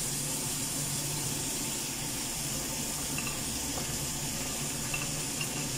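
Steady sizzling hiss of a wok of tomato-chilli sambal cooking on the stove, with water added, over a low steady hum.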